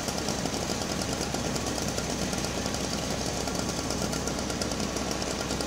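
A machine running steadily with a fast, even rattle, at a constant level throughout.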